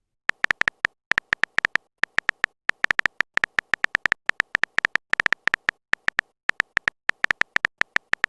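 A rapid, uneven run of short, high-pitched clicking beeps, about six a second with a few brief pauses: a keyboard-typing sound effect for text appearing in a chat.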